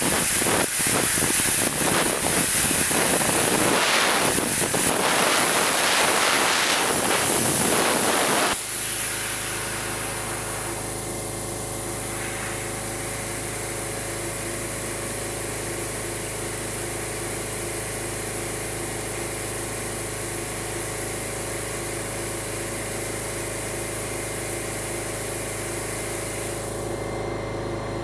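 Plasma arc of an Eastwood Elite 60 plasma cutter cutting Hardox 450 steel plate, a loud crackling hiss that cuts off abruptly about eight and a half seconds in as the cut ends. A steady machine hum carries on after it.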